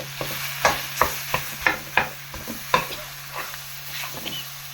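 A spoon stirring boiled potatoes into a frying onion and spice masala in a pan, with irregular knocks and scrapes against the pan over a light sizzle.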